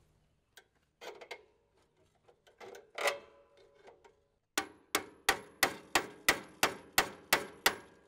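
Hammer striking metal at a sawmill's blade pulley to drive out a broken bandsaw blade wedged behind it. A few scattered knocks, then, about halfway through, a run of about ten quick, even strikes at roughly three a second, with a light metallic ring.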